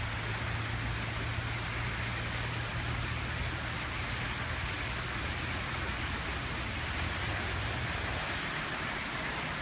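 Steady rushing rain noise with a low steady hum beneath it.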